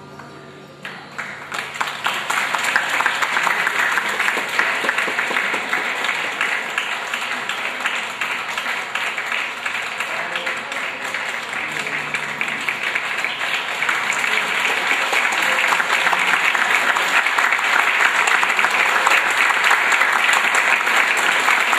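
Audience applauding, beginning about a second in as the last gamelan note dies away and growing louder toward the end.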